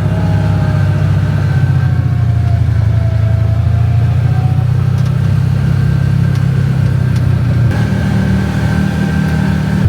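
Car engine running under load, heard from inside the car as it drives up a hill: a steady low rumble with a whining tone that dips and rises again.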